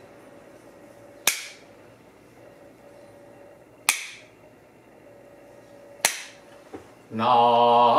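A Buddhist bamboo clapper (jukbi) is struck three times, each a sharp crack with a short ring, spaced about two to two and a half seconds apart. About seven seconds in, a man's voice begins a sustained Buddhist chant.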